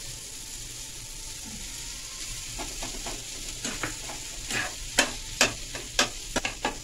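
Chopped onion, tomato and capsicum sizzling in oil in a non-stick frying pan as grated boiled potato goes in. From about halfway a spatula scrapes and knocks against the pan in quick, irregular strokes, louder towards the end.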